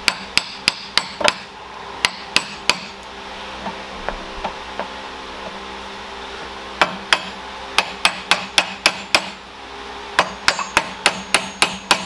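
Mallet tapping a Saab 9-3 mid shaft bearing into its seat. Sharp strikes come in runs of quick taps, about three a second, with a pause of a few seconds in the middle.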